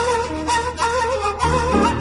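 Background music: a wavering melody over a steady bass line and a beat.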